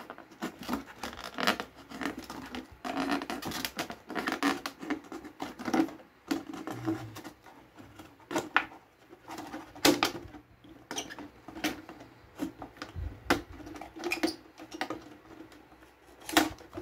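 Scalpel blade cutting through a thin plastic soda bottle as the bottle is turned in the hands: irregular scratching, crackling and clicks of the plastic.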